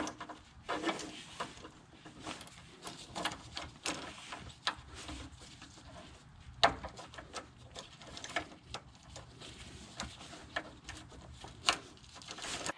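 Hand tools at work on the car: irregular sharp clicks and taps, about fifteen spread over the stretch, the loudest about seven seconds in.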